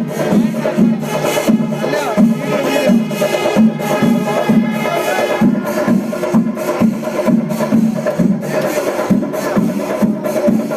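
Music with a steady low drum beat, about two strokes a second, under sustained melodic tones.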